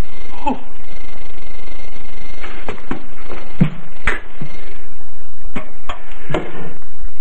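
Steady hiss of an old 16mm film's optical soundtrack, with a faint high tone in the first few seconds. Through it come about ten irregular knocks and taps, bunched around the middle and again near the end: a friar's footsteps and wooden staff on a stage floor.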